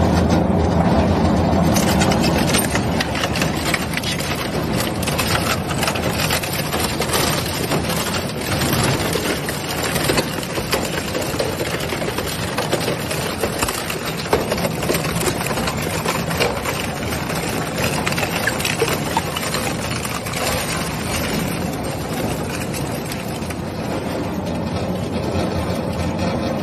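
Industrial twin-shaft shredder running steadily, with a dense stream of cracks and snaps as it tears a motor scooter's plastic body panels and frame apart.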